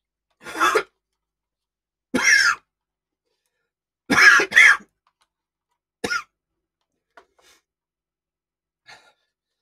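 A man coughing hard in four bouts about two seconds apart, the third a double cough, then a few faint throat noises. The coughing comes from the chilli heat of very hot chicken ramen laced with extra chilli powder.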